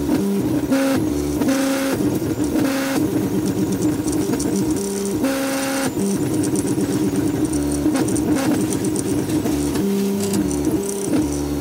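3D printer's stepper motors whining through a test run, the tone jumping between several pitches every fraction of a second as the axes make short moves.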